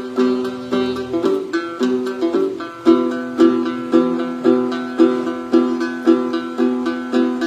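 Đàn tính, the long-necked gourd-bodied lute of Then ritual music, plucked solo in a repeating low figure; from about three seconds in, the strokes settle into an even beat of a little under two a second.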